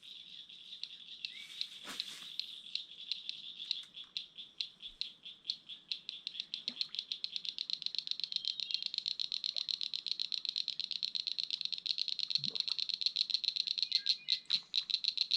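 A small animal calling in a long, even train of high-pitched clicking pulses that come faster and louder after a few seconds. A few faint knocks.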